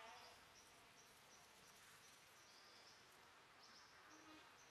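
Faint insects chirping: short high-pitched chirps repeating about twice a second over a soft hiss.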